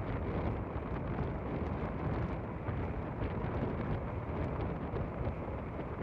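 Steady wind rushing over a sailing yacht under way and buffeting the microphone, with the wash of water along the hull.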